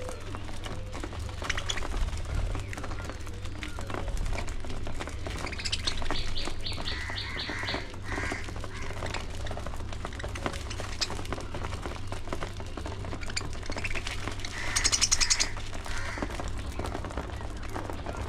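Budgerigars chirping and chattering, with short scattered calls and quick rattling trills, the loudest trill about fifteen seconds in.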